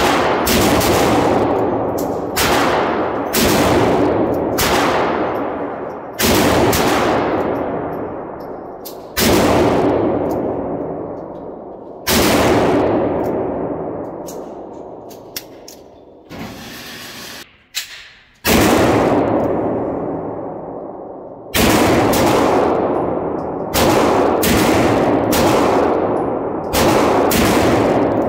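A string of .357 revolver shots, each with a long echoing ring-out, fired at an uneven pace about one to three seconds apart. There is a pause of several seconds past the middle, then a quicker run of shots near the end.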